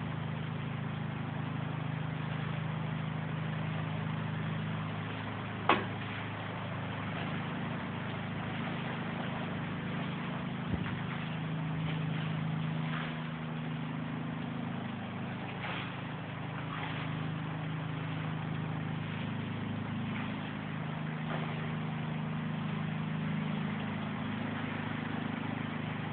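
Heavy rain falling steadily, with a low droning hum underneath and a sharp knock about six seconds in.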